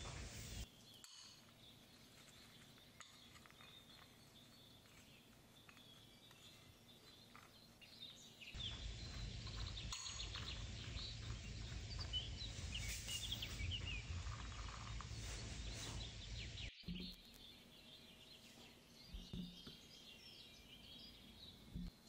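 Quiet background noise with faint bird chirps in it, most noticeable in the middle stretch. The background level jumps up suddenly about eight seconds in and drops again about seventeen seconds in.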